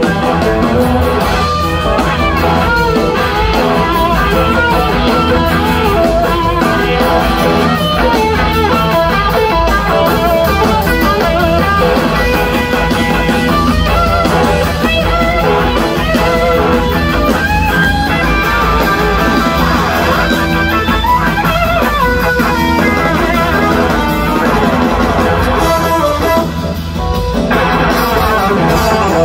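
Live rock band playing, electric guitar to the fore over drum kit and bass, loud and continuous.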